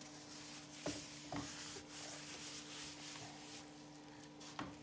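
Gloved hands rubbing dry barbecue rub into a raw beef brisket on a plastic cutting board: a faint, uneven rasping of the glove over the spice-coated meat, with a few light taps.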